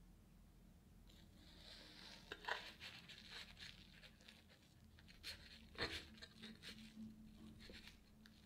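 A fork cutting through a slice of cream-filled sponge roll cake, with soft tearing of the sponge and a few light clicks of the fork against the ceramic plate.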